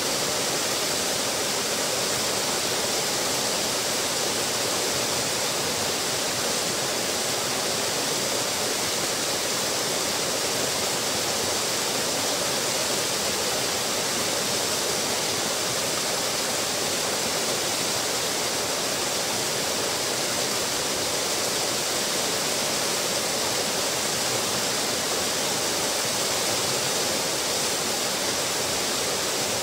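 Small waterfall pouring over a stone ledge into a pool: a steady, even rush of falling water that never changes.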